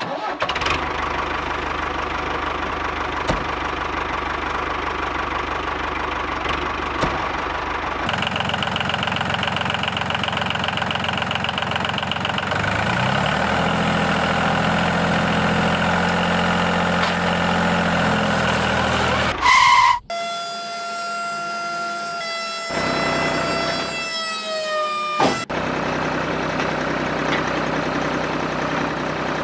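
Small motor running steadily, its sound changing abruptly at several edits; in one stretch a whine that slides slightly lower in pitch.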